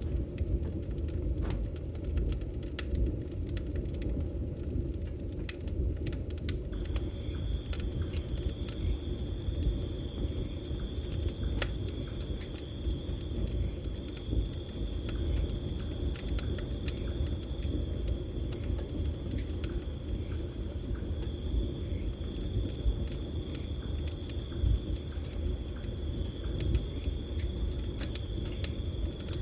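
Campfire crackling, with scattered sharp pops over a low rumble. About seven seconds in, a steady high-pitched trill of crickets starts and carries on over the fire.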